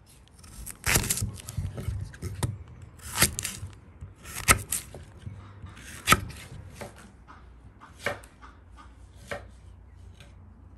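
Kitchen knife cutting peeled raw potatoes on a wooden cutting board: a series of single cuts, each ending in a knock of the blade on the board, one every second or two, the loudest around the middle.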